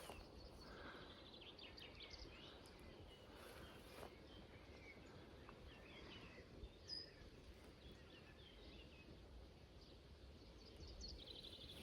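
Near silence: faint outdoor ambience with scattered distant bird chirps.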